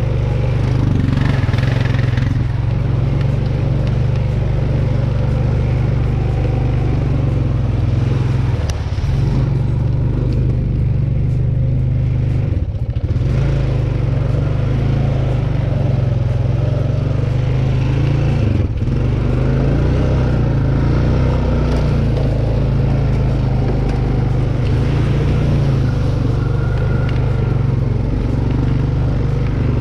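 A motor vehicle engine running steadily at an even pitch, with a couple of brief dips in the middle.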